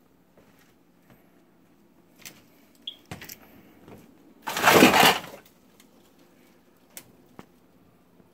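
Rubbish on the floor being disturbed: scattered clicks and knocks, then one loud rustling, crunching burst lasting about a second near the middle.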